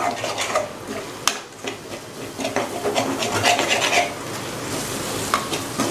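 Metal spatula scraping and stirring onion-tomato masala in a metal kadai: a run of uneven rasping strokes against the pan's bottom, working loose masala that has begun to catch and stick.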